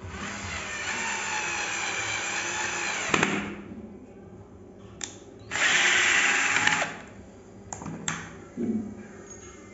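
Flipkart SmartBuy 12 V cordless drill-driver driving a screw into a wooden plank. Its motor runs for about three seconds and stops with a click. After a short pause it runs again, louder, for just over a second, then a few light clicks and a knock follow.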